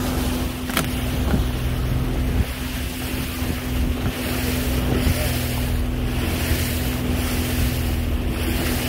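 Fishing boat's motor running steadily under way, a constant hum, with wind buffeting the microphone. A single sharp click about a second in.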